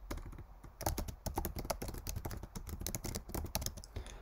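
Typing on a computer keyboard: a quick, uneven run of keystrokes as a line of text is entered.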